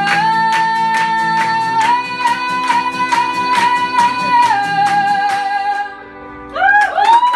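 A woman sings long held notes over a strummed acoustic guitar, with hand claps keeping a steady beat about two to three times a second. The guitar and claps stop a little after five seconds in, and the last sung note ends about six seconds in.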